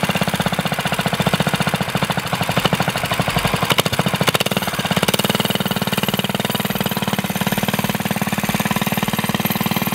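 Minibike's small single-cylinder four-stroke engine running with a rapid, even firing pulse; about five seconds in its note changes as the throttle is worked and the bike moves off.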